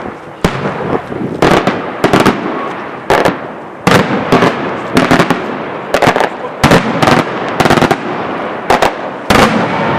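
Daytime aerial firework shells bursting in rapid, irregular succession, about two sharp bangs a second, some in close pairs, with rumbling echoes between.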